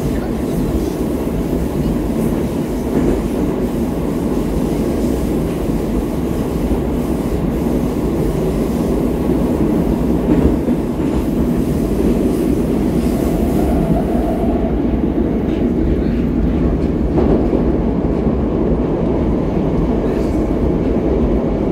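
Moscow Metro train running between stations, heard from inside the carriage: a loud, steady low rumble of wheels on the rails. The higher hiss drops away about two-thirds of the way through.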